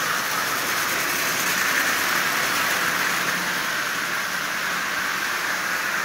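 Marx tinplate toy steam locomotive with an old Marx motor in a 666 shell, running steadily on three-rail O gauge track and pulling lithographed tin cars. Its motor whirs and its wheels run on the metal rails at an even level throughout.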